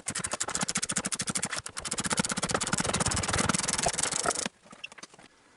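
Socket ratchet clicking in a fast, even run as a rear seat-mounting bolt is loosened. It stops abruptly about four and a half seconds in.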